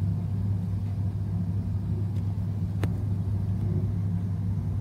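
A steady low hum with no words, and one faint click a little before three seconds in.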